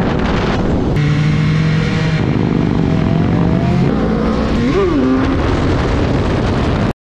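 BMW S1000R's inline-four engine running at speed under heavy wind noise on the camera, holding a steady pitch, then briefly rising and falling in revs about five seconds in. The sound cuts off abruptly just before the end.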